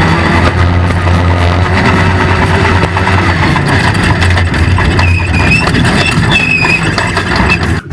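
Off-road race car engine running hard at steady revs, with frequent knocks and rattles.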